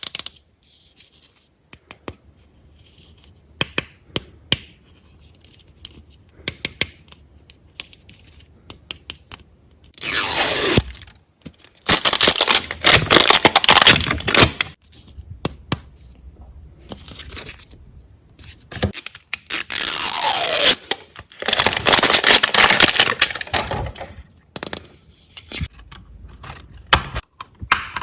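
Toy packaging being handled and torn open by hand: scattered small clicks and taps at first, then several long stretches of tearing and rustling, each a second to a few seconds long.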